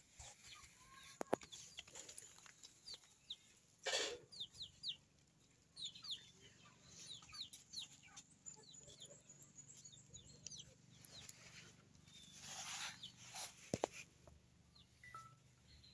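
Faint, scattered bird calls: many short, high chirps that fall in pitch, with a couple of louder, rougher calls about four seconds in and again near the end.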